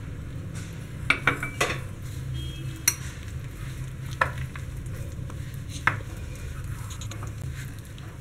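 Hand working flour and water into a soft dough in a glass bowl, with about six sharp clinks of glass against the bowl spread through it over a steady low hum.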